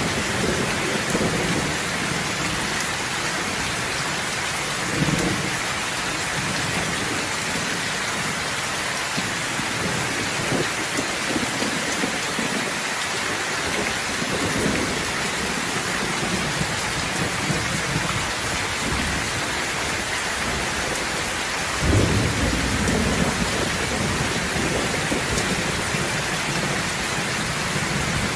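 Steady heavy rain falling, with thunder rumbling low several times; the loudest thunder rumble breaks about three-quarters of the way in and rolls on for a few seconds.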